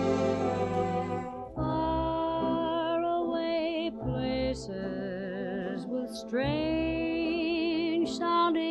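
Recorded music: an instrumental passage fades out about a second in. Then a solo voice sings long notes with a wide vibrato, in phrases with short breaks, over a soft accompaniment.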